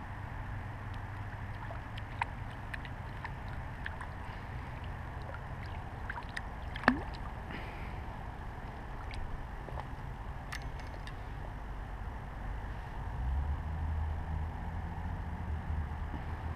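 A hooked bluegill being played at the surface and stripped in on fly line by hand, with faint splashing over a steady low rumble. Scattered small clicks run through it, and one sharp snap comes about seven seconds in.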